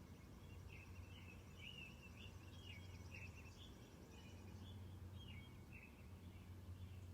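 A chorus of American robins singing faintly in woodland, in short warbled phrases repeated one after another, with a thin high trill above them for the first few seconds. A steady low hum runs underneath.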